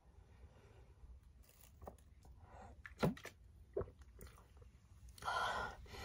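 Quiet swallowing as cola is gulped from a plastic bottle, with a few short, sharp gulps around three and four seconds in, then a long, noisy breath out near the end as the drinker comes up for air.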